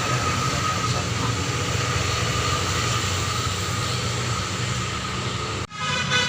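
Tour bus engine running steadily with road noise as the bus climbs past. The sound cuts off suddenly near the end.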